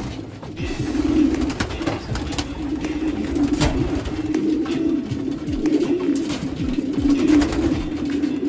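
Racing pigeons cooing continuously in a loft, several birds overlapping in a low, wavering drone. Scattered short claps of wing flaps sound as birds take off and land.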